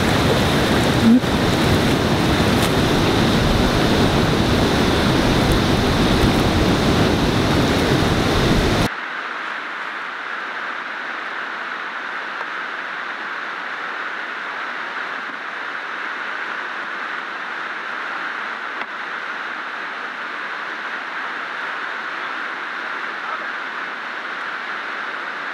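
Rushing river rapids with wind on the microphone, loud and full, with a single short knock about a second in. About nine seconds in it cuts suddenly to a quieter, thinner rush of moving water that continues steadily.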